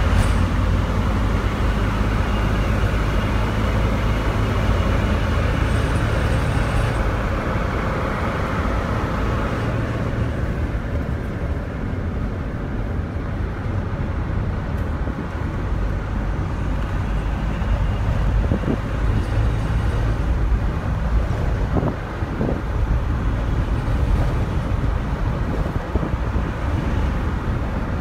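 Steady road noise inside a moving car: a low engine and tyre rumble with traffic around it. A brighter hiss eases off about ten seconds in.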